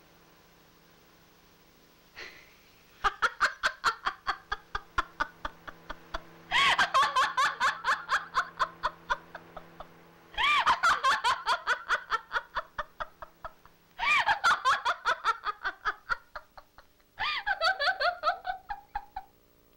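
Hearty laughter in five long fits, each opening loud and breaking into rapid ha-ha pulses that trail off. A faint steady hum runs underneath.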